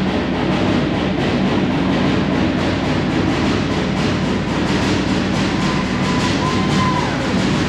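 Fast, steady drumming accompanying a Samoan siva afi (fire knife dance): a rapid, even, clattering beat that never breaks.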